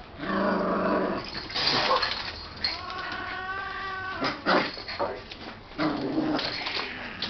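A pet cat and a small white dog squaring off, with animal whining and growling calls: a lower call in the first second, a long high whine around three seconds in, and another low call near the end.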